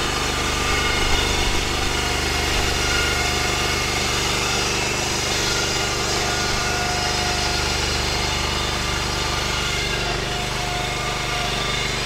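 Woodland Mills HM126 band sawmill's engine running steadily under load while the saw head is pushed along the track and its band blade cuts through a log.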